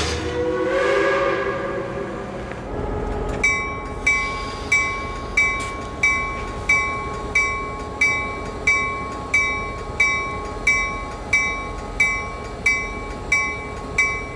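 Bell of Reading & Northern GP38-2 diesel locomotive No. 2013 ringing steadily, about one and a half strikes a second, starting a few seconds in, over a low rumble. It is preceded by a fading whistle tone from the passing train.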